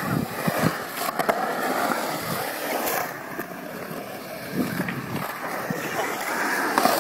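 Skateboard wheels rolling and carving on a smooth concrete bowl, with a few sharp clacks from the board, about a second in, around three seconds in and near the end.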